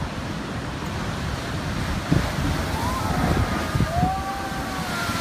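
Sea surge bursting up through a coastal limestone blowhole, with a heavy low boom about two seconds in as a wave forces water and spray out of the hole. Underneath are steady surf and wind on the microphone.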